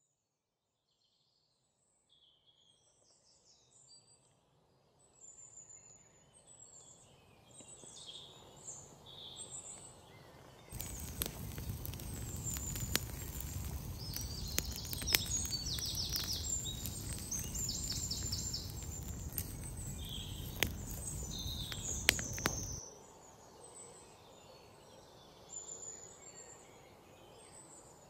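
Birds chirping throughout. About eleven seconds in, a campfire of dry twigs and ferns burns with a steady low rush of flame and a scatter of sharp crackles and pops, starting and stopping abruptly about twelve seconds later.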